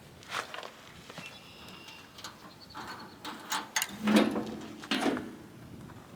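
Scattered knocks and metallic clanks of hands working on a small band sawmill with its engine off, while the dull blade is being changed. A short metallic ring sounds about a second in, and two louder clunks come about four and five seconds in.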